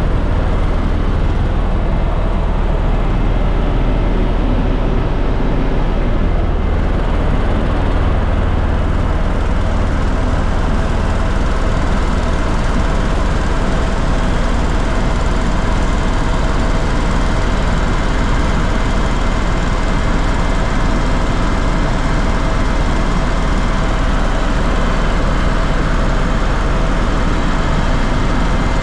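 Steady, loud engine drone of a sightseeing aircraft in flight, heard on board, with a deep hum underneath and a few steady tones over it.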